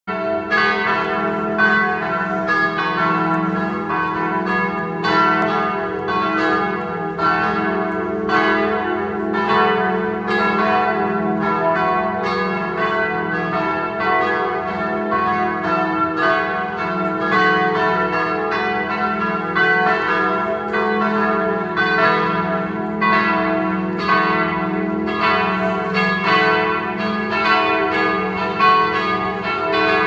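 Several church bells ringing together in a continuous peal, strokes following one another closely and overlapping, over a steady low hum from the bells.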